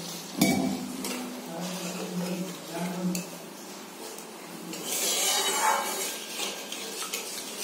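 A spatula stirring thin, watery curry gravy in a metal kadai, clinking and scraping against the pan's side, with a sharp knock about half a second in and a louder stretch of scraping around five seconds in.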